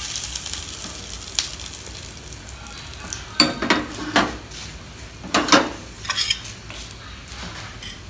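Hot sesame-oil tempering with dried red chillies and curry leaves sizzling on top of coconut chutney, dying away over the first couple of seconds. Then a few sharp clinks and knocks of metal cookware and utensils against the counter, loudest about three and a half and five and a half seconds in.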